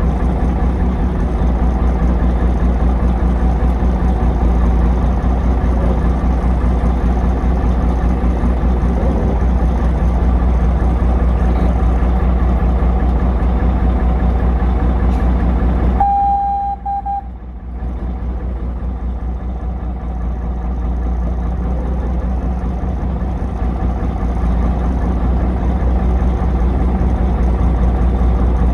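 Truck engine running steadily with a strong low hum. About sixteen seconds in the sound cuts out briefly, with one short beep, then the engine sound returns.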